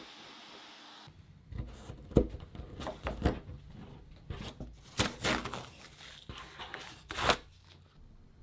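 Shop vacuum hose sucking up routing dust, cutting off about a second in. Then irregular sharp clicks, knocks and tearing sounds as a plastic router template and masking tape are handled and pulled from a foam board.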